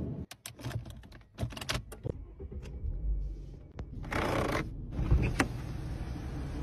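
Sharp clicks of switches and handling on a Mercedes-Benz W140 S-Class, then about four seconds in an electric window motor starts and runs steadily, moving the glass.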